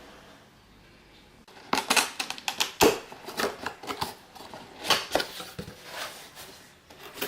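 A cardboard box being opened by hand, with irregular rustling, scraping and sharp clicks of flaps and packing starting about a second and a half in.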